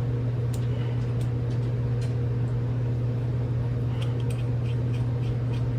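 A steady low machine hum runs throughout, with scattered light clicks of a screwdriver and small screws being handled on a revolver's frame, coming more often about four seconds in.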